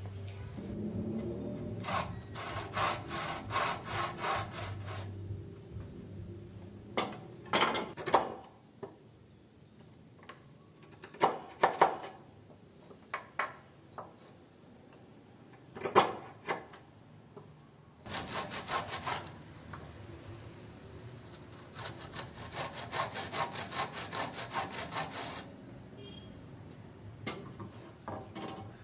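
Hand saw cutting wood in runs of quick, even strokes, with several single sharp knocks between the runs.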